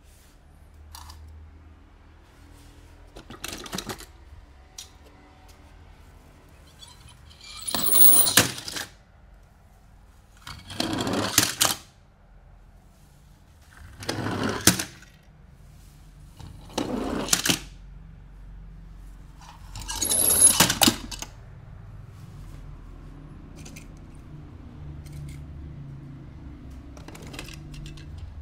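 Toy car packaging being handled and opened: a series of short rustling, crackling bursts, five loud ones about three seconds apart, with lighter clicks between.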